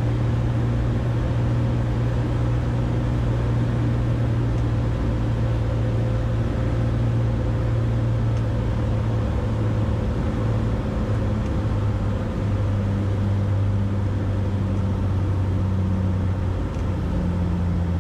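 Cessna 180's six-cylinder Continental O-470 engine and propeller droning steadily in the cockpit during the final approach and landing. The drone drops slightly in pitch about two-thirds of the way through.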